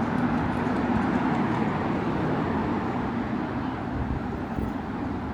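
Steady city street ambience dominated by the continuous rumble of passing road traffic, easing off slightly toward the end.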